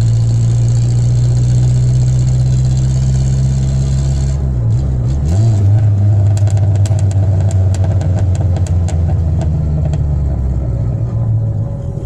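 Ford Escort Mk5's engine running steadily while driving, its note dropping and climbing back about four and a half seconds in, as at a gear change. A string of light ticks follows in the middle.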